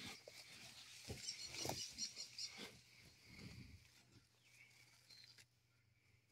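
Soft scraping and rustling of loose potting soil being dug through by hand in a plastic tote, a handful of short scrapes and knocks in the first few seconds that die away to near silence.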